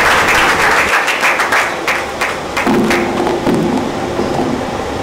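Audience applause fading into a few scattered claps over the first three seconds, followed by low thumps and rubbing as a microphone is gripped and adjusted on its stand.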